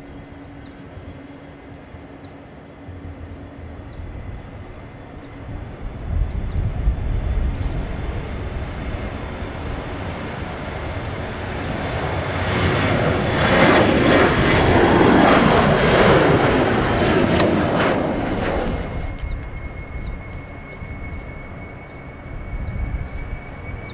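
Boeing 737 jet airliner taking off: engine noise builds through the takeoff roll and swells to a loud roar as the jet climbs past, peaking just past the middle with the pitch sweeping as it goes by, then fading over the last few seconds.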